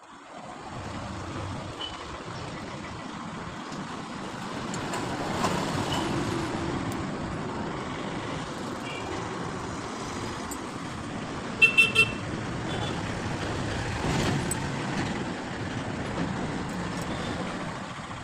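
Road traffic noise, with a vehicle horn beeping three short times in quick succession about two-thirds of the way through.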